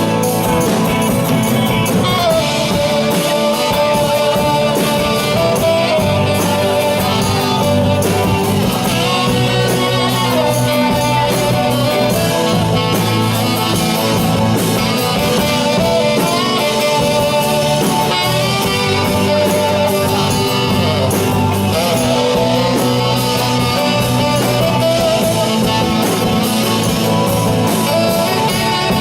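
Live band music, an instrumental passage with guitar to the fore over a steady accompaniment.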